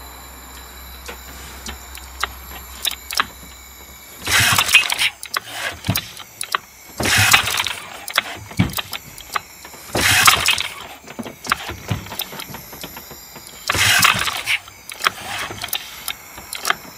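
Honda BF5 single-cylinder four-stroke outboard being pull-started by its recoil starter four times, about three seconds apart: each pull a short whir of the rope and the engine cranking over without catching. The engine is fed butane pushed straight into the carburettor venturi, with no regulation.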